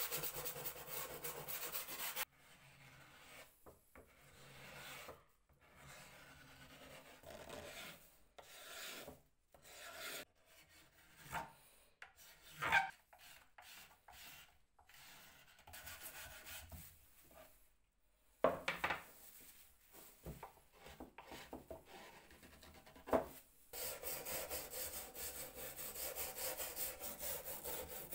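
Wood of a mandolin being rubbed down by hand: quick back-and-forth rubbing strokes, dense at the start and again for the last few seconds, with quieter, scattered scraping and a few sharp single scrapes in between.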